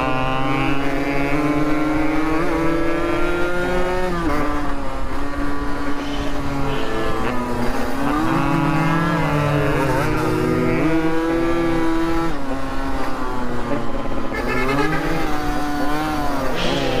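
Motorcycle engine under way, its pitch climbing through the revs and dropping sharply several times as the rider shifts gears, over a steady rush of wind.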